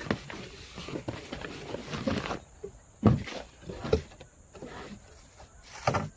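Handling noise as a fishing bait boat is lifted out of its waterproof carry bag: irregular rustling and knocks, with a sharp thump about three seconds in.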